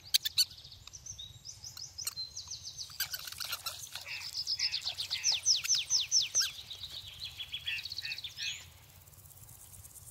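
Birds calling: rapid series of short, high notes, each falling in pitch, several a second, stopping a little before the end. Two sharp clicks right at the start.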